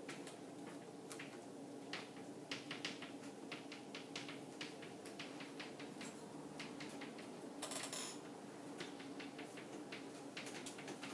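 Chalk writing on a chalkboard: an irregular run of short taps with a longer scrape about eight seconds in, over a steady low room hum.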